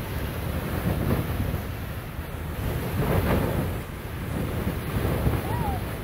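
Beehive Geyser erupting, its water jet rushing and hissing from the cone, mixed with wind buffeting the microphone that swells and eases every second or so.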